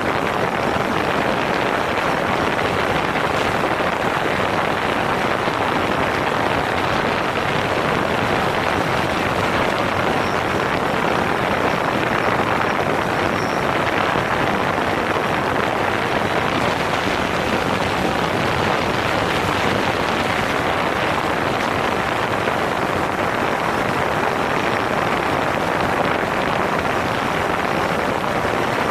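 Steady rushing noise of a DJI Phantom 4 quadcopter's spinning propellers in flight, picked up by a camera mounted on the drone itself.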